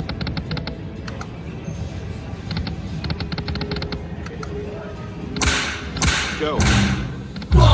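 Buffalo slot machine playing spins: quick runs of rapid electronic ticking as the reels spin and stop, then three loud sudden crashes about half a second apart near the end. Casino background music and chatter run underneath.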